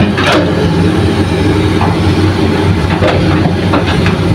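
Hitachi excavator's diesel engine running with a steady low drone while it loads soil, with a few short knocks, the strongest just after the start.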